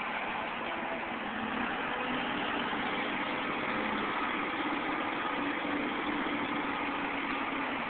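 Diesel engine of an old Caterpillar 235 excavator running steadily while it works, an engine the onlooker thinks is probably tired.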